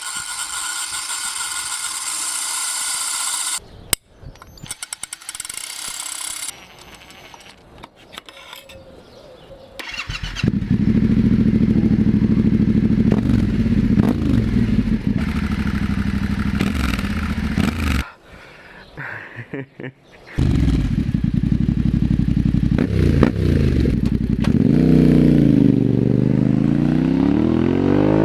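Yamaha Ténéré 700's parallel-twin engine through a Mivv Storm exhaust with the dB killer removed: started about ten seconds in and idling, cut off for a couple of seconds, then running again with one rev that rises and falls near the end. It opens with a few seconds of a high hissing rasp.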